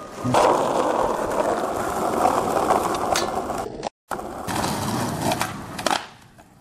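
Skateboard wheels rolling on pavement, with a few sharp clacks of the board. The sound cuts out completely for a moment about four seconds in, then rolls on and fades near the end.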